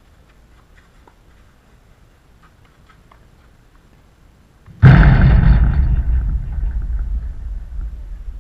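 Faint scattered clicks, then about five seconds in a sudden loud thump followed by a low rumble that fades away over about three seconds.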